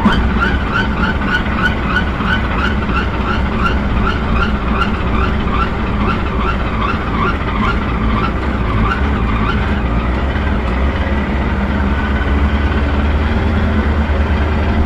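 Race car engine running at speed, heard from inside the cockpit as a steady drone. A repeated high chirp, about three a second, runs over it for the first ten seconds and then dies away.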